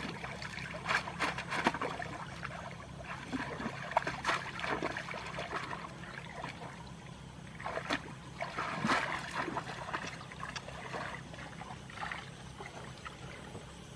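Shallow water splashing and trickling in irregular bursts as hands grope and feet wade in a flooded field, over a steady low hum.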